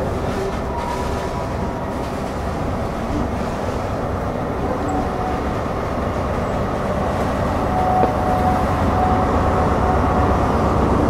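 Diesel train running past, its engine noise steady and loud, swelling a little louder near the end.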